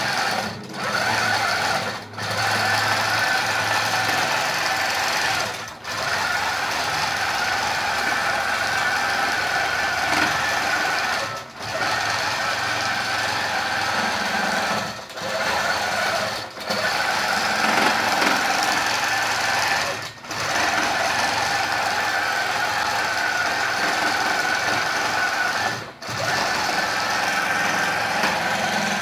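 Computer-guided Handi Quilter longarm quilting machine running under ProStitcher control, stitching a recorded straight line in the ditch with a steady mechanical buzz. The sound dips briefly about eight times as the machine moves from point to point.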